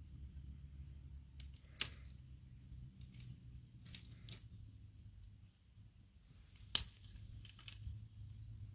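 Dry twigs being cut and snapped off a branch with a hand blade: a few sharp snaps and clicks, the loudest about two seconds in and again near seven seconds.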